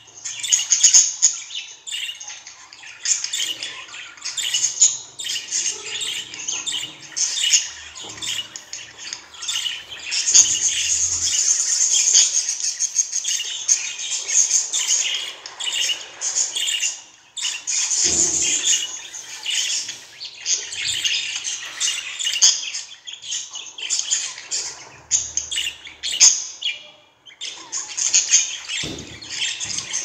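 Budgerigar chattering and warbling: a fast, near-continuous run of high chirps and squawks, with a longer unbroken warble about a third of the way through.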